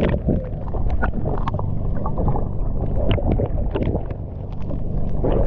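Seawater sloshing and splashing around a waterproof action camera at the surface as it dips in and out of the water, with many small sharp clicks of droplets and bubbles.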